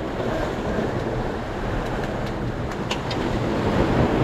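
Steady rush of surf breaking on rocks, growing louder near the end, with a couple of faint ticks about three seconds in.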